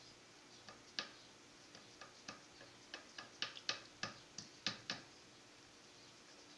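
Cheese hoop clicking and knocking against a stone metate as fresh curd is pressed into it by hand: a dozen or so sharp, irregular clicks between about one and five seconds in.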